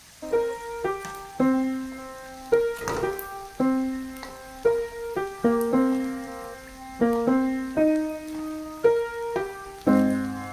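Background piano music: a slow melody of struck notes and chords, each left to ring and fade.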